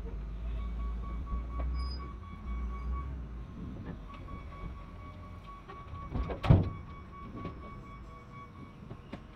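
Heavy loader working to lift a junked truck and its stacked beds. Its engine runs low and steady for the first few seconds under a thin high tone, and there is one loud metal clang about six and a half seconds in.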